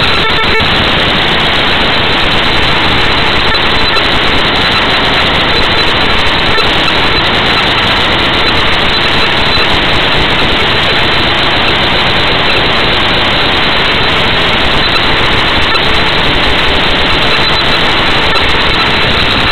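Loud, steady static hiss with no speech or other sound heard through it.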